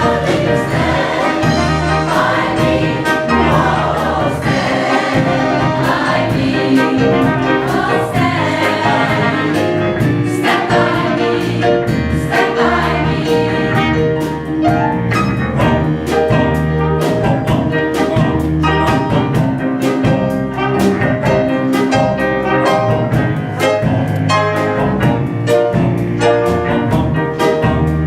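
Live gospel band playing an instrumental passage between verses, with a steady drum beat under sustained chords and choir voices.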